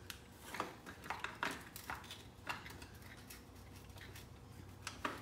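Scattered light metallic clinks and taps as a replacement transfer case encoder motor is pushed up against the transfer case by hand and worked onto its splines. Most come in the first couple of seconds, with one more near the end.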